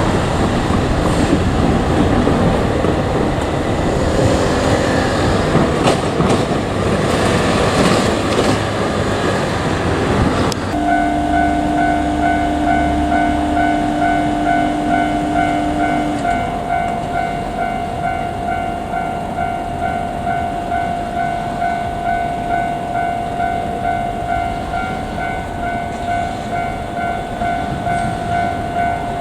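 A KiHa 200 diesel railcar passes close by: loud running noise with wheels clattering over rail joints. About ten seconds in, the sound changes abruptly to a level-crossing alarm ringing in steady rapid pulses, with a lower steady tone held for about five seconds as it starts.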